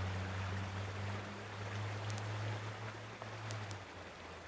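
Creek water running over rocks, a steady rushing, with a low steady hum under it that stops near the end.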